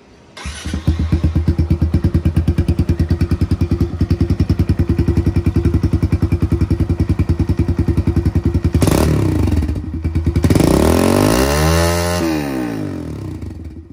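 Kawasaki KLX110 single-cylinder four-stroke engine on its stock exhaust. It comes to life about half a second in and idles warm with an even, pulsing beat. Near the end it is revved, rising and falling in pitch twice, the second rev larger.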